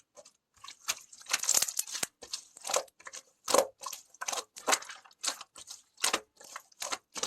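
Hardened clay being broken and crushed: a string of sharp cracks and crunches, about two a second and irregular, with a longer stretch of crumbling crunch about a second and a half in.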